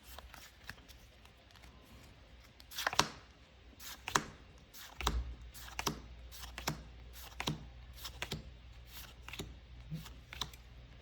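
Pokémon trading cards and a foil booster-pack wrapper being handled: rustling and a string of short, sharp card snaps and flicks, with a longer rustle about three seconds in. A faint low hum starts about halfway through.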